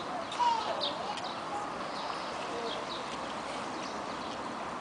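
Outdoor poolside ambience: a steady background murmur with short, high bird chirps scattered throughout and a brief gliding call about half a second in.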